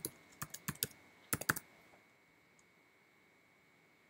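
Typing on a computer keyboard: a quick run of keystrokes in the first second and a half, then nothing more.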